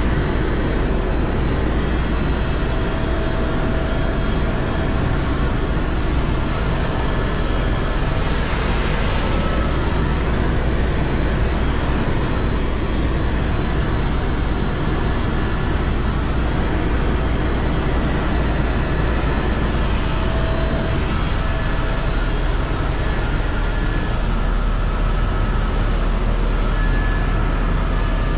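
Helicopter in flight: a steady, loud drone of rotor and engine, heaviest in the deep low end, with a few faint thin whines above it.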